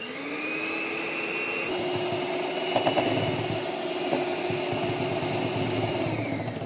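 Electric hand beater whipping non-dairy cream in a bowl: the motor spins up at the start, runs with a steady whine, and winds down near the end. A few sharp clicks come about three seconds in.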